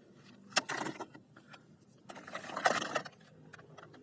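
Clicks and rattling from a plastic toy gun being handled: a sharp click about half a second in, then a longer rattling burst near the three-second mark.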